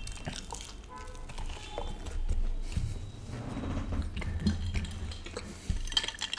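Close-miked chewing of pizza and garlic bread, with soft mouth sounds and a few light clicks of dishes near the end.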